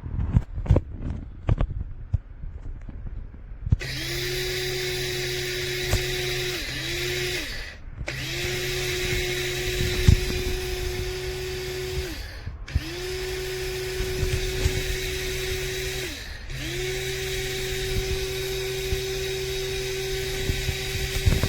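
DR MILLS DM-7441W electric blade grinder's motor run in four pulses of about four seconds each, with short pauses where the whine drops in pitch and then rises again as it restarts. A few clicks and knocks of handling the grinder come before the first run.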